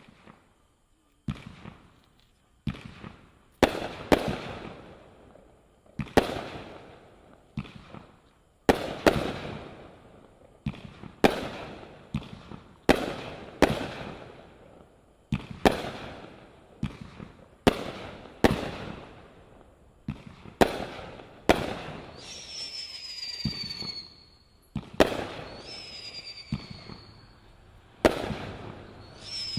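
Brothers Fireworks 'Hey, Hey, Hey' 500-gram cake firing: a string of sharp bangs, about one every second or so, each trailing off. From about three-quarters of the way in, high whistles falling in pitch join the bangs.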